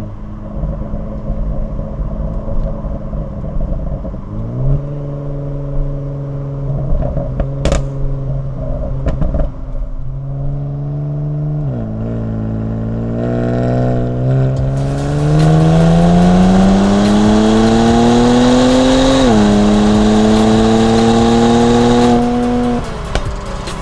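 Exhaust of a 2019 Kia Stinger GT2's twin-turbo V6 through an MBRP catback exhaust, heard from outside the car while cruising and then making a light pull. Engine pitch climbs steadily from about halfway, drops sharply at an upshift, climbs again and falls away as the throttle is lifted near the end, with a harsh rushing noise over the loudest part of the pull and a single sharp crack about eight seconds in.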